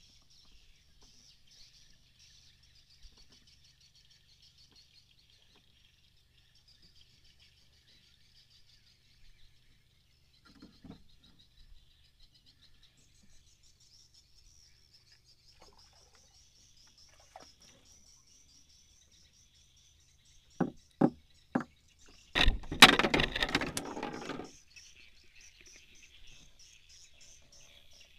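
Night insects chirring steadily in a high chorus. About twenty seconds in come three sharp knocks, then two seconds of loud, rapid thumping and slapping: a freshly caught fish flapping on the boat's wooden deck.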